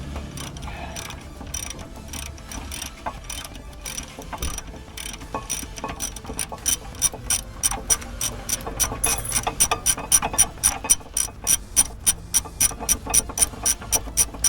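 Hand ratchet wrench clicking as a brake bolt is wound out, the clicks irregular at first and then settling into a steady run of about three a second.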